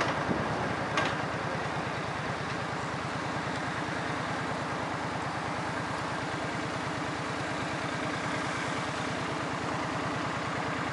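An engine idling with a steady, even low pulsing. A short click sounds about a second in.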